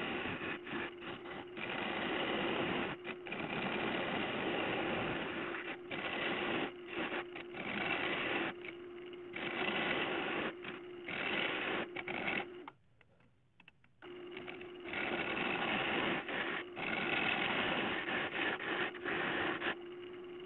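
Wood lathe running with a steady motor hum while a hand-held turning tool cuts the spinning dead-ash bowl blank, a rough scraping noise that comes and goes as the tool is pushed in and lifted off. The sound drops out for about a second a little past halfway, and near the end the cutting stops, leaving only the lathe's hum.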